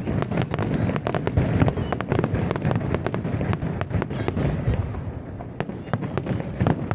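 Fireworks display: a rapid barrage of bangs and crackling bursts, many per second, thinning out a little about five seconds in and picking up again near the end.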